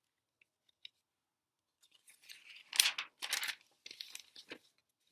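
Paper rustling and crinkling, as of a workbook page being handled. A couple of faint clicks come first, then a cluster of crisp crackles starts about two seconds in and stops near the end.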